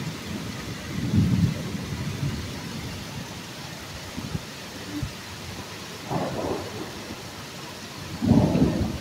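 Heavy rain pouring steadily in a windy storm, with low rumbling bursts about a second in, around six seconds, and loudest near the end.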